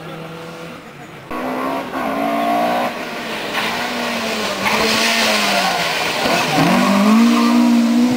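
Rally car engine running hard through the stage. Its note comes in suddenly about a second in and falls as the car slows, with a rush of noise as it passes, then climbs again near the end as it accelerates away.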